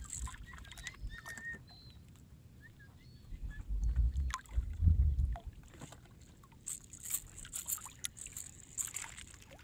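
Small-boat sounds on the water: sea lapping and knocking against a kayak hull, with a low rumble about four and five seconds in and a run of hissing clicks near the end.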